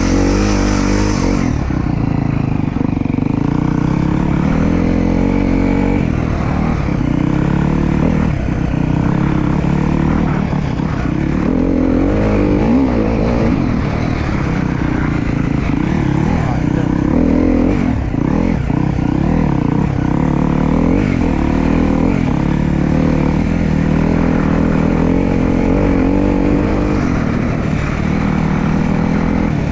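Dirt bike engine running as the bike is ridden, its pitch rising and falling with the throttle.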